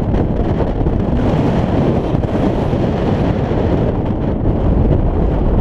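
Heavy, steady wind buffeting the microphone of a camera mounted on the outside of a slowly moving car, a low rumble with no distinct events.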